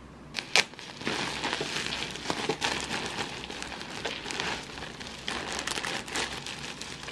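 Woven plastic sack rustling as it is opened and a huge mass of rubber bands tumbles and slithers out of it, a dense crackling rustle. Two sharp clicks come just before the rustling starts.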